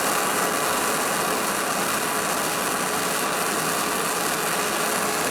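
Gas torch flame hissing steadily while heating sheet metal to shrink a stretched spot in a dent.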